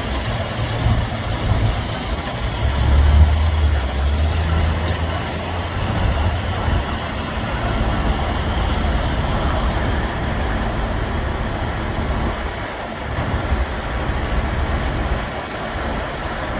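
Heavy-duty tow truck's diesel engine running steadily as a low rumble, louder for a few seconds near the start while it works the boom cable hooked to the stuck box truck. A couple of short, sharp clicks.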